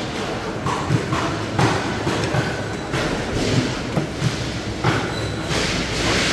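Knife or cleaver cutting up a stingray on a board: irregular sharp knocks and thuds, roughly two a second, over a steady low hum.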